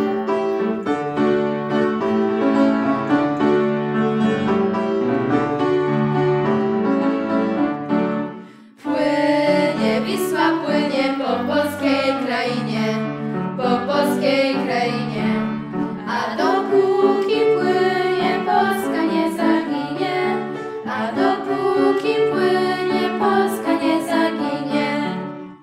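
Clarinet with piano accompaniment playing a krakowiak, a Polish dance piece. The music breaks off briefly about eight and a half seconds in, then resumes with a busier melody.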